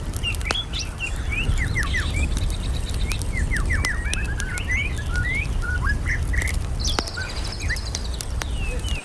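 Small birds chirping again and again in short, quick falling chirps. A steady low rumble runs underneath, with a few sharp clicks.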